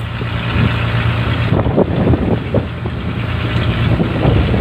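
A fishing boat's engine running with a steady low hum, with scattered short knocks.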